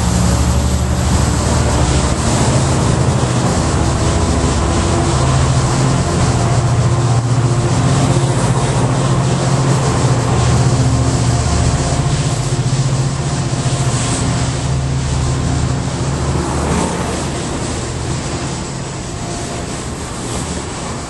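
Amtrak Pacific Surfliner passenger train rolling past at close range: a steady, loud diesel engine drone over the rumble of the bilevel cars, getting somewhat quieter near the end.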